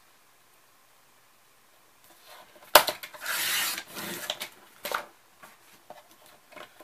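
A Fiskars sliding paper trimmer cutting a sheet of patterned paper. A sharp click comes nearly three seconds in, then about a second of the blade carriage rasping along its rail through the sheet, followed by a couple of smaller knocks as the paper is handled.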